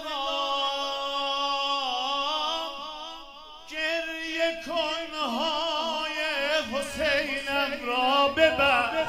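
A man's amplified singing voice holds one long wordless note for about three seconds. After a short breath it breaks into quick, wavering trills and turns in the style of Persian vocal ornamentation (tahrir) in a Shia religious eulogy (madh).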